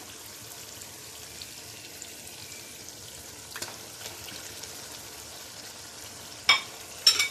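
Spicy onion-tomato masala sizzling gently in a non-stick wok while peeled boiled eggs are slid in from a plate. There are two sharp knocks near the end.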